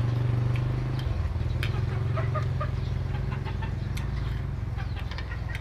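A small engine idling steadily nearby, a low drone that shifts and eases slightly about a second in. Light clinks of a spoon and chopsticks against a ceramic noodle bowl, and small chirping calls, are heard over it.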